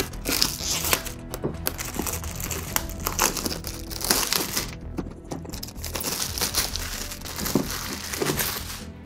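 Clear plastic shrink wrap crinkling and tearing as it is pulled off a cardboard box.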